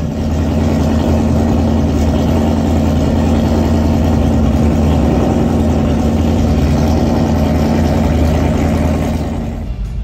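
Classic car engine running at low revs as it rolls slowly past, a deep, steady rumble that fades out near the end.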